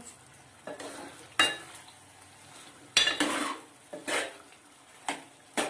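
Steel spoon stirring chicken curry in a stainless steel pot, a handful of clinks and scrapes against the pot, with a longer scrape about three seconds in. Under the strokes the chicken's released juices bubble faintly as they come to the boil.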